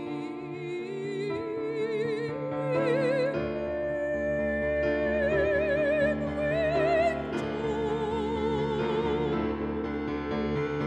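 Mezzo-soprano singing in classical operatic style, accompanied by a grand piano. Her line climbs over the first few seconds, then settles into long held notes with a wide vibrato over sustained piano chords.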